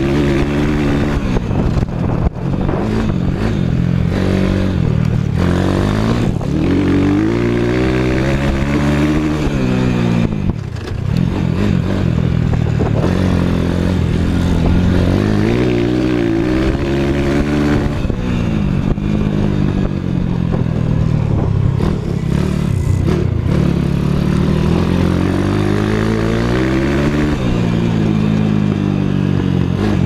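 YCF S147 flat-track bike's single-cylinder engine running under hard riding, its pitch rising and falling several times as the throttle is opened and closed through the turns, heard from on board.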